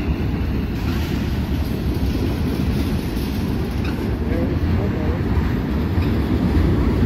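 Freight train cars rolling past below, a steady low rumble of steel wheels on the rails.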